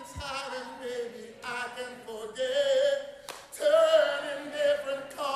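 Male vocalist singing live, holding long, ornamented notes with little or no instrumental backing.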